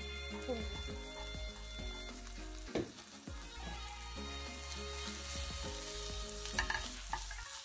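Chopped onions, curry leaves and spices sizzling in oil in a nonstick frying pan, with a spatula stirring and scraping across the pan a couple of times.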